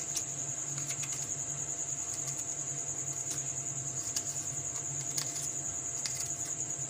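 A steel spoon scraping and clicking softly inside a peeled round gourd (tinda) as its seeds are scooped out, a few faint ticks. Under it, the loudest sound is a steady high-pitched shrill drone with a fine pulse, over a low steady hum.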